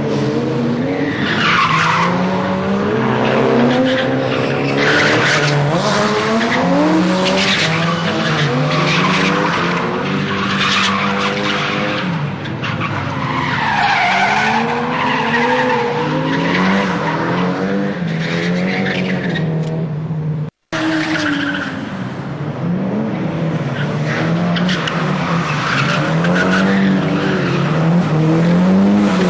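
Cars drifting: engines revving up and down over long, repeated tyre squeals that swoop in pitch as the tyres slide. The sound cuts out for a split second about two-thirds of the way through, then carries on.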